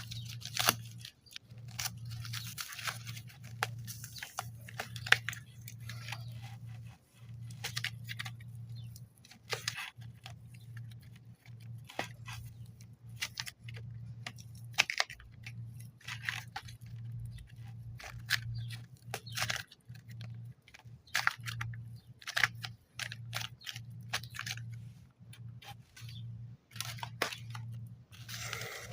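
Close-up crinkling and crunching of modelling clay and its foil and box packaging being opened and handled: irregular crisp crackles and clicks, over a steady low hum.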